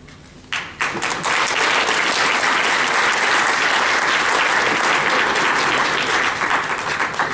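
Audience applauding: a few claps about half a second in swell into steady clapping from many hands, which thins to scattered claps near the end.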